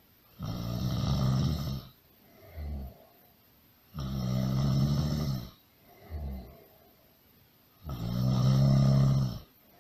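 Loud snoring: three long snores about four seconds apart, each followed by a brief softer breath.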